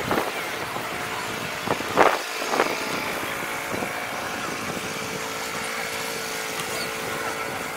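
A vehicle engine idling steadily with an even hum from about three seconds in, after a few short, sharp sounds in the first three seconds.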